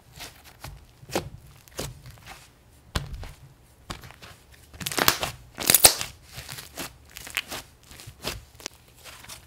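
Thick, creamy slime being pressed, spread and folded by hand, giving irregular squishing and small crackles and pops, with a louder run of crackles about five to six seconds in.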